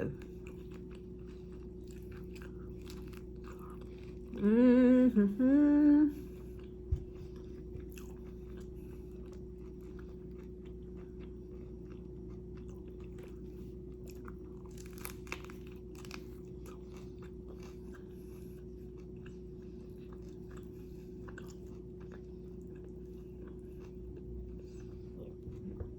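A person chewing and biting into a turkey wrap close to the microphone, with many soft, short mouth clicks and crunches. About four seconds in she hums a pleased two-part "mm-mm". A steady faint hum runs underneath.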